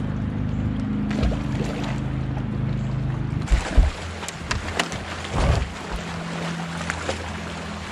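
Low, steady mechanical hum from the bass boat's motor, whose note shifts about three and a half seconds in, with a few short knocks and thumps on the boat's deck.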